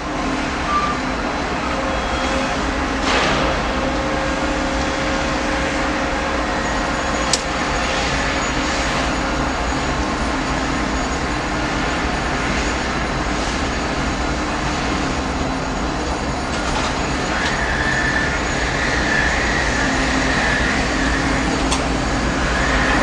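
Manifest freight train creeping past at a crawl: a steady rumble of rolling cars with a few sharp clicks, and a faint high squeal near the end.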